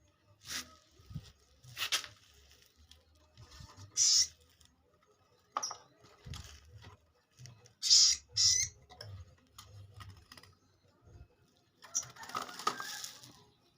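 Captive sogon bird giving short, sharp chirps a few seconds apart, with a longer, busier patch of chirps and rustling near the end.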